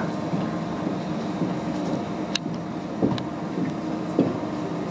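Steady mechanical hum holding several level tones, with a few sharp clicks or knocks about two and a half, three and four seconds in.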